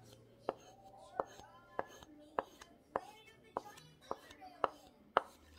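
Axe edge being stropped on a homemade strop, the head tapping sharply onto the strop with each stroke, about nine taps at a steady pace of roughly one every 0.6 s. The stropping is working off a burr still left on the freshly sharpened edge.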